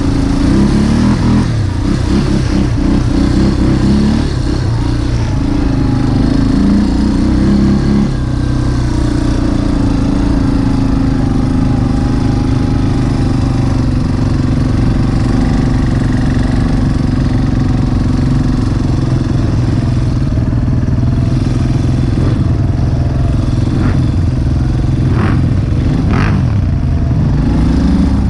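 ATV engine running, its pitch rising and falling with the throttle for the first several seconds, then holding steady. Two brief clicks come near the end.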